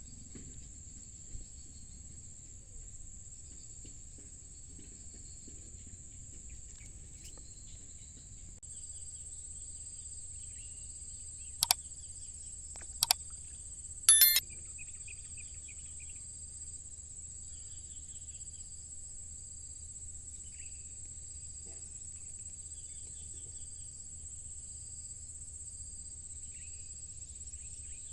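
Crickets and other insects shrilling steadily in a high, continuous chorus, with a second, higher shrill joining about a third of the way in. Around the middle, three short, loud, sharp sounds stand out over the chorus.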